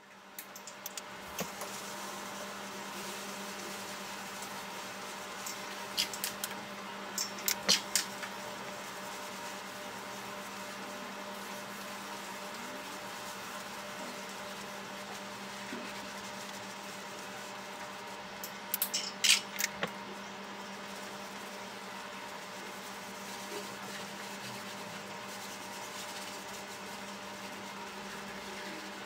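Steady room hum with a low tone, broken by a cluster of sharp clicks and knocks about six to eight seconds in and another around nineteen to twenty seconds in.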